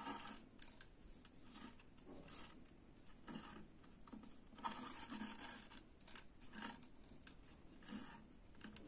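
Faint, irregular rustling and scraping of waxed thread being pulled through and tightened into macramé knots by hand.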